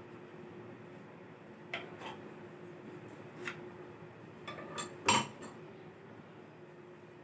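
Scattered light clinks and knocks of objects being handled, about half a dozen, the loudest a sharp knock about five seconds in, over a faint steady hum.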